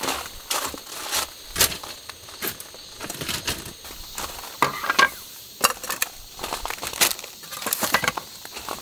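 Camping gear being set out on a low shelf table: a string of sharp knocks and clatters as a wooden plate, a soft pouch and a cup are put down, with rustling of plastic packaging and footsteps on gravel.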